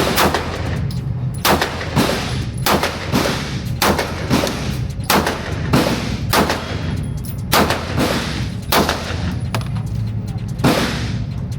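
Semi-automatic pistol shots fired in a steady string, roughly one or two a second at an uneven pace, each crack followed by a reverberant tail, over a steady low hum. The gun is cycling without jamming from a 32-round extended magazine loaded short to ease its spring tension.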